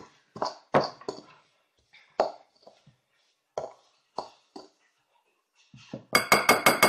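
Metal utensil scraping and clinking against a glass mixing bowl while stirring a grainy sugar and olive oil scrub, first in scattered strokes, then from about six seconds in a fast, even run of ringing clinks, about six a second.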